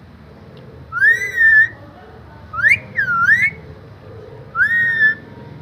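A parrot whistling three short whistles, each sliding up in pitch and then wavering; the middle one dips and rises again.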